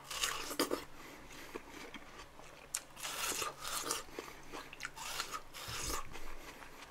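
Person biting into a slice of fresh watermelon several times and chewing the flesh, in a series of short bites at irregular intervals.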